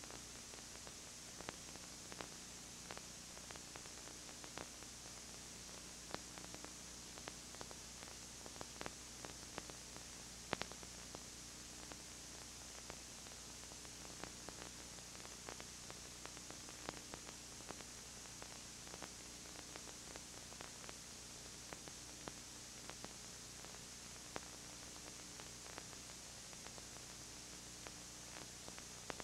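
Steady hiss and low hum of analog videotape playback, with scattered faint clicks and crackles and one louder click about ten seconds in.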